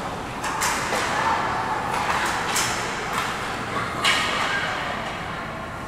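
Ice hockey play on the rink: skate blades scraping the ice and sticks and puck knocking, half a dozen short sharp scrapes and knocks over a steady background, the loudest about four seconds in.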